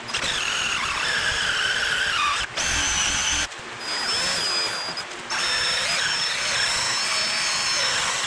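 Cordless drill boring into a seized screw in a Nissan VG30DE oil pump housing, the bit squealing on the metal in a high whine. It eases off briefly about two and a half seconds in, runs lighter for a couple of seconds, then bears down again.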